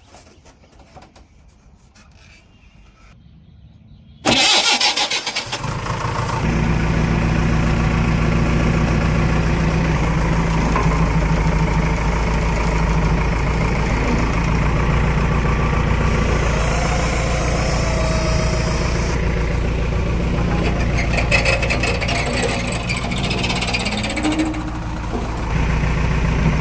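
A diesel engine is cranked and starts about four seconds in, then runs steadily. The level dips briefly near the end and comes back up.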